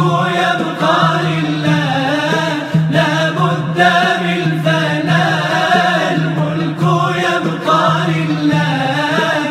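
Nasheed: a chanted, wavering vocal melody over a steady low drone.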